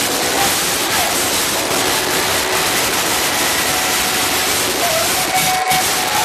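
Loud, even wash of live concert sound, crowd and amplified band blurred into a rushing noise, with faint wavering notes over it and a held note near the end.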